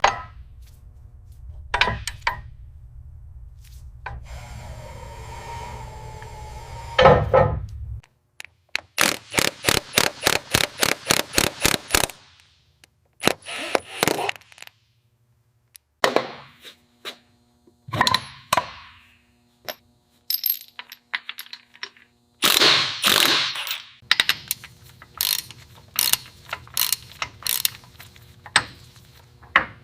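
Hand-tool work on metal parts: a string of small metallic clinks, knocks and clicks, including a fast even run of about five clicks a second. A low hum runs underneath and stops about eight seconds in.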